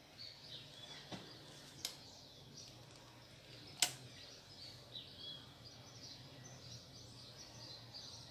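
Birds chirping faintly in the background over a low steady hum, with a few sharp clicks, the loudest about four seconds in.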